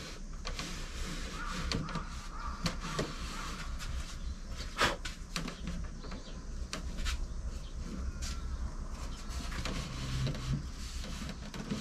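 Light knocks and taps of wooden boards being set onto and shifted on a wooden shelf frame, with one sharper knock about five seconds in, over a steady low outdoor rumble.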